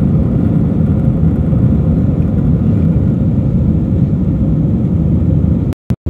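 Airbus A321 jet engines and rushing air heard inside the cabin during the climb after takeoff: a steady, deep noise. Near the end the sound cuts out abruptly several times.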